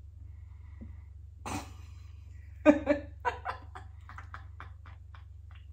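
A woman laughing: a run of short bursts of laughter starting a little past halfway through and trailing off, after a single breathy burst earlier on.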